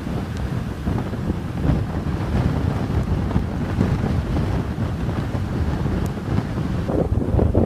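Strong gusty wind buffeting the microphone, a low rumbling noise that surges and dips continuously. These are a typhoon's back-side winds blowing at 10 to over 15 m/s.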